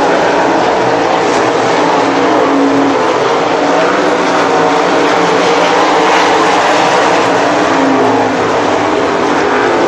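Several 360 winged sprint cars racing on a dirt oval, their V8 engines making a loud continuous drone that rises and falls slightly as the cars pass.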